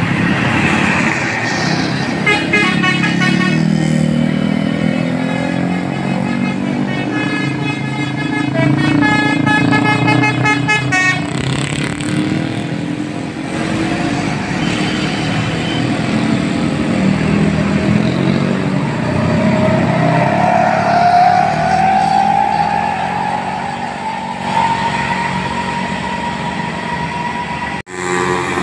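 Tour bus's basuri musical horn playing a quick melody of short tooting notes for several seconds, over the rumble of the bus engine. Later a single long tone rises slowly in pitch.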